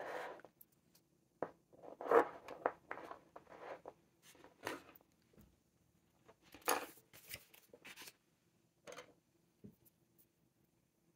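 Handling of a small plastic ink sample vial on a desk: a run of short scrapes, clicks and rubs as its screw cap is twisted off and set down and the vial seated in a holder, with the loudest about two seconds and seven seconds in. A paper swatch card is laid on the table near the end.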